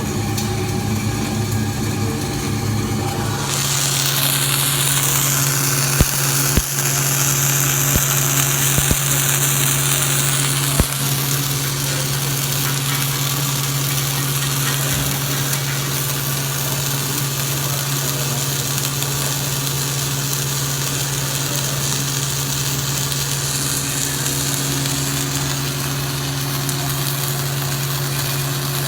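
An engine running steadily with a constant hum. A hiss joins it from about four seconds in until about eleven seconds, with a few sharp clicks.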